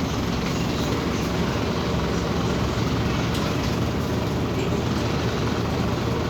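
Scania OmniCity city bus under way: a steady drone of engine and road noise with no marked changes.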